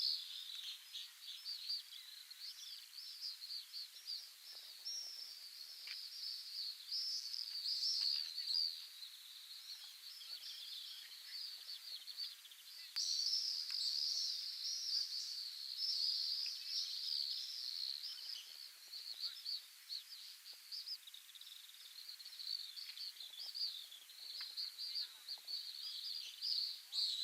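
Pacific swifts calling at their breeding site: a continuous chorus of shrill, high-pitched twittering screams from several birds at once, growing louder about thirteen seconds in.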